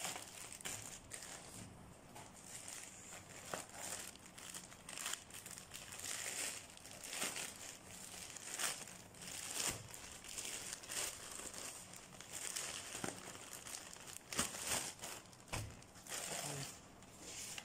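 Black plastic mailing bag crinkling and rustling in irregular bursts as it is pulled open by hand and worked off an air-column bubble-wrap cushion.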